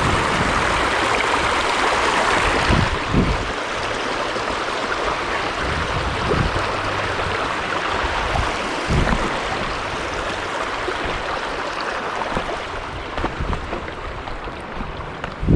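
Mountain stream rushing over rocks: a steady hiss of running water, a little louder in the first few seconds, with a few dull low knocks here and there.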